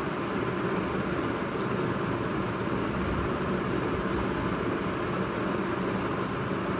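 Steady low rushing background noise with no distinct events.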